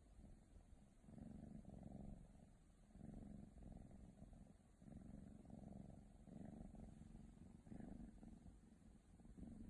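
Ragdoll kitten purring: a quiet, finely pulsing low rumble that swells and eases with each breath, about every second and a half.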